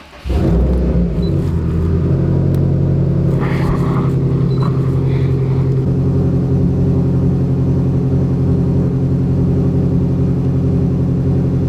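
Subaru WRX's turbocharged flat-four engine starting up and settling into a steady idle.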